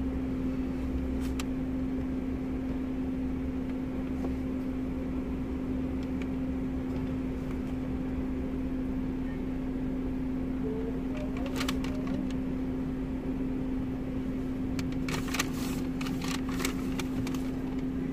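Steady hum of a parked car's engine idling, heard from inside the cabin, with a few light clicks and rustles about a second in and again near the end.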